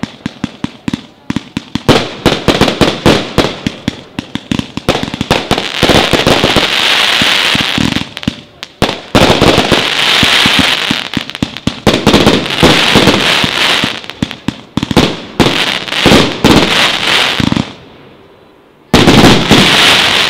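Triplex TXB099 264-shot fireworks cake, with 0.8–1.5 inch tubes, firing its last run: rapid volleys of shots bursting into stars, with long stretches of dense crackling. The firing breaks off briefly near the end, then comes one final loud salvo, which ends the cake.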